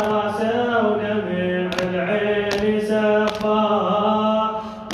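Solo male radood chanting an Arabic Shia lament (latmiya) into a microphone, holding and bending long melismatic notes without words. A sharp slap keeps the beat about every three-quarters of a second.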